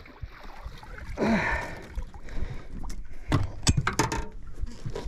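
Barramundi in a landing net being lifted out of the water into a boat: water splashing off the net about a second in, then a run of sharp knocks as the net and fish come against the boat.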